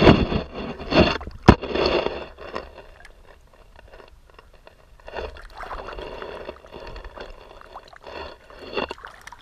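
Shallow river water splashing and sloshing as a caught asp is held in the shallows and released. The splashing is loudest in the first two seconds, with a sharp knock about a second and a half in, then quieter sloshing later on.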